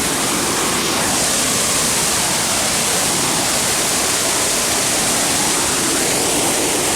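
Waterfall's falling water rushing as a loud, steady, unbroken noise.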